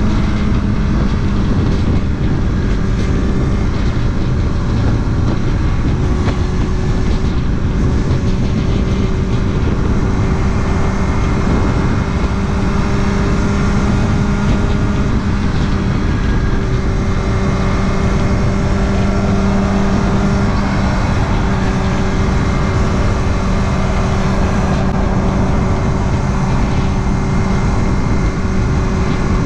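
Kawasaki ZX-6R inline-four sport bike engine running under way at a steady cruising speed, its pitch holding nearly level, over a steady rush of noise.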